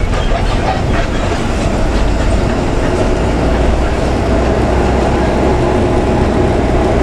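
Steady drone of a DAMRI bus's engine and road noise heard from the front of the cabin as the bus drives down a wet road.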